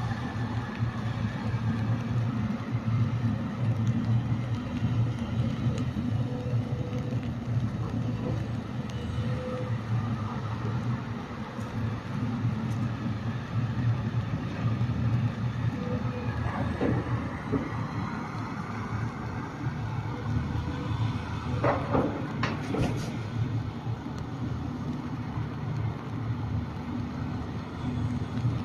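Long-reach excavator's diesel engine running steadily, with a few sharp knocks or clanks about two-thirds of the way through.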